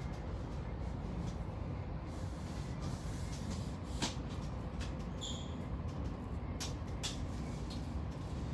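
Steady low rumble of a passenger train running, heard inside the carriage, with a few light clicks and a sharper click about four seconds in.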